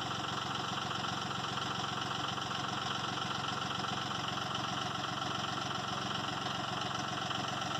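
Bucket truck's engine idling steadily.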